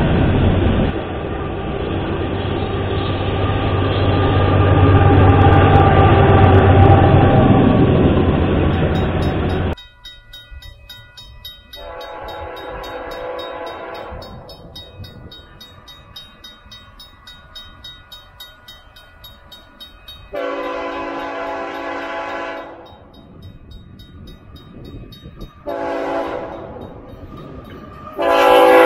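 A freight train's boxcars rolling past with steady wheel noise, which cuts off about ten seconds in. Then a Canadian Pacific diesel locomotive's air horn sounds a chord in the pattern long, long, short, long, the grade-crossing signal, with the last blast loudest as the train approaches.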